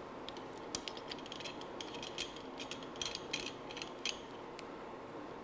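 Microphone stand being adjusted by hand, with the UMIK-1 measurement mic being set in place: a run of faint, irregular clicks and rattles from its clamp and fittings, which stops about four seconds in.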